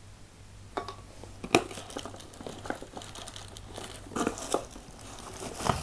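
Packaging crinkling and rustling as a boxed angle grinder is unwrapped, with irregular crackles and a few sharp clicks, the sharpest about a second and a half in and near the end.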